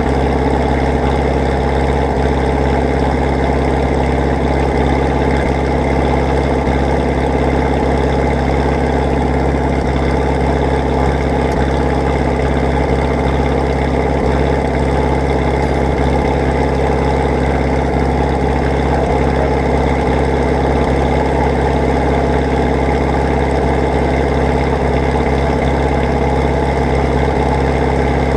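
An engine running steadily at one constant speed, with no revving or change.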